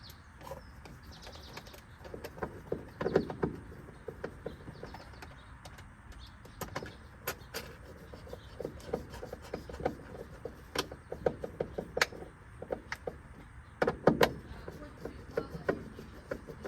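Scattered clicks, taps and rustling from hands and tools working inside a car's interior at the headliner and roof rail, with louder clusters of knocks about three seconds in and again about fourteen seconds in.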